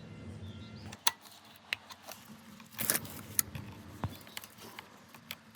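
Scattered metallic clicks and clinks of hand tools working on a motorcycle's chain adjuster as the chain slack is set, with a brief louder clatter about three seconds in.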